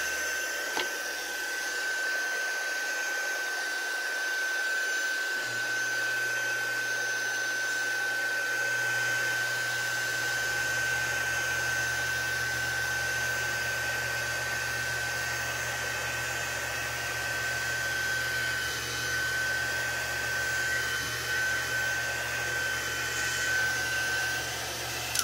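Handheld electric dryer running steadily, blowing air with an even high whine over the fan noise; a low hum joins about five seconds in. It cuts off at the very end.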